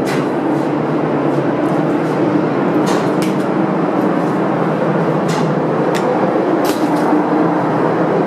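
Container ship engine-room machinery running: a loud, steady din with a low hum, and a few sharp clicks now and then.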